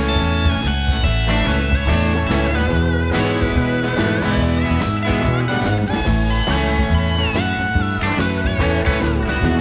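Live band music in an instrumental break of a country jam-band song: a lead guitar plays, its notes bending and sliding in the second half, over the band's bass and a steady beat.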